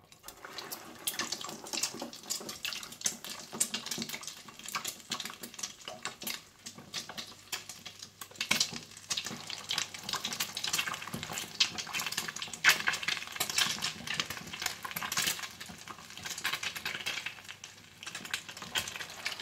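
Egg-coated beef and potato kebabs deep-frying in hot oil: a dense, continuous crackling sizzle that starts as the first kebab goes into the oil, with louder pops here and there as more kebabs are slipped in.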